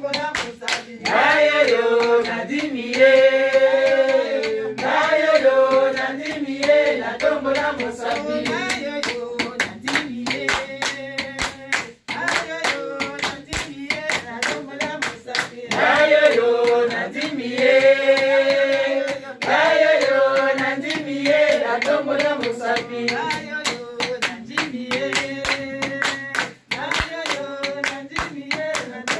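A small group clapping their hands in a steady rhythm along with singing voices; the singing comes and goes in phrases while the clapping keeps time throughout.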